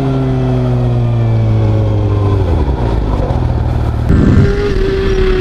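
Sport motorcycle engine heard from on board, its note slowly falling as the revs drop; about four seconds in the revs jump suddenly to a higher note that holds steady.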